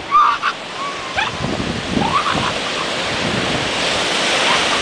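Ocean surf washing onto the beach, swelling toward the end, with a few short high calls in the first couple of seconds.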